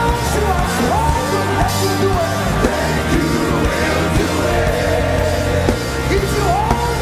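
Live worship band music with bass and drums and a lead melody that slides up into long held notes several times.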